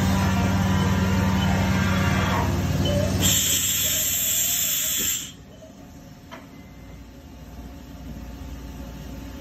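Haas UMC-750 machining centre running with a steady hum. About three seconds in, a loud burst of compressed-air hiss starts and lasts about two seconds, as the side-mount tool changer works at the spindle. After it the machine drops to a much quieter hum with a couple of light clicks.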